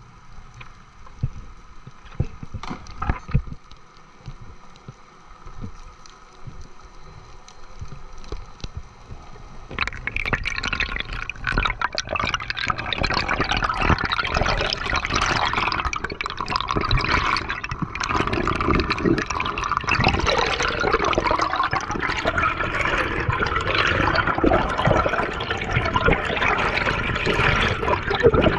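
Water sloshing and bubbling, quiet with a few sharp clicks at first, then much louder and denser from about ten seconds in.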